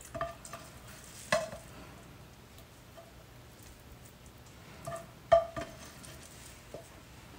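Spatula scooping scrambled eggs from a pan into a glass meal-prep container, with five light knocks of utensil on dish; the loudest comes a little past halfway.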